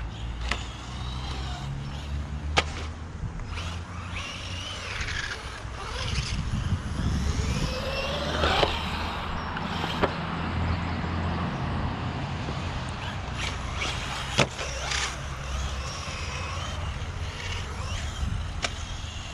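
Bezgar HM124 1/12-scale brushless RC car's electric motor whining, its pitch rising and falling as it speeds up and slows. A handful of sharp knocks from the car landing and hitting the ground break in.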